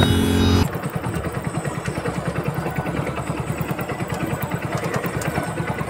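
Hero motorcycle's single-cylinder engine idling with an even, rapid low putter. A short burst of wind rush at the start cuts off about a second in.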